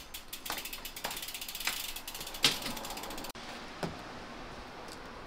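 Bicycle freewheel hub clicking rapidly as the wheel turns without pedalling. About three seconds in it cuts off abruptly to a steadier background noise with a few separate knocks.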